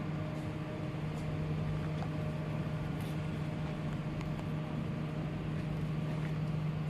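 An engine running steadily, a constant low hum that holds one pitch throughout, with a few faint clicks over it.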